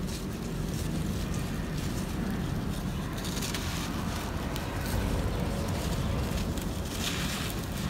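A dry, sandy clod of dirt crumbled between the fingers, with grit and sand trickling down onto loose sand. It gives a gritty crunch and hiss that grows denser about three seconds in and again near the end.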